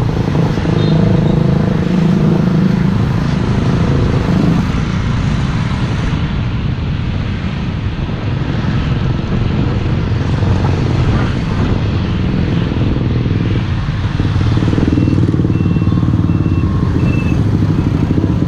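Motorbike and road traffic: engines running steadily with road noise, a little quieter in the middle.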